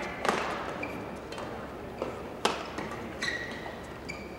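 Badminton rackets striking the shuttlecock in a rally: a few sharp cracks, the loudest about a quarter second in and about two and a half seconds in. Shoe squeaks sound on the court floor between the hits.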